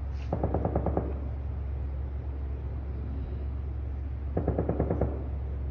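Machine guns firing on a test range: two short bursts of rapid automatic fire, one near the start and one about four and a half seconds in. The fire is real loud, over a steady low hum.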